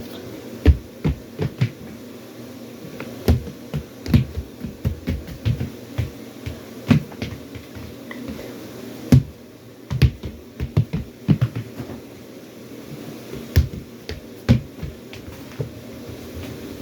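Irregular sharp clicks and knocks of a small toy being handled, coming in quick clusters of several a second with short pauses between.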